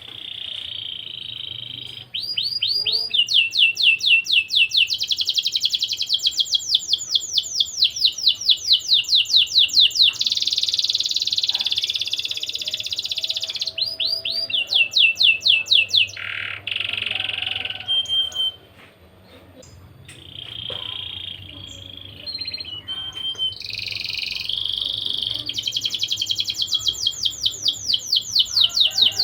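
Domestic canary singing: long, rapid trills of quickly repeated chirping notes strung into several phrases, with a short break about two-thirds of the way through before the trills resume.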